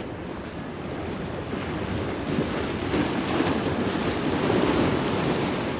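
Ocean surf washing and breaking against the rocks and concrete of a jetty, swelling louder through the middle, with wind buffeting the microphone.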